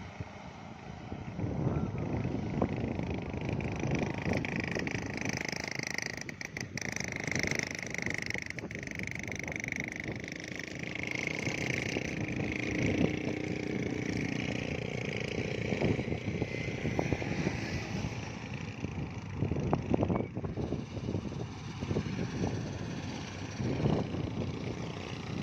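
A motor running steadily, with people's voices over it.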